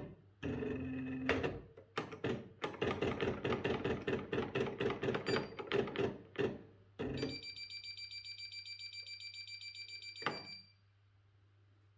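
Electronic typewriter printing a quick run of keystrokes as rapid clicks, then sounding its electronic warning tone, a rapidly pulsing beep lasting about three seconds that ends with a click.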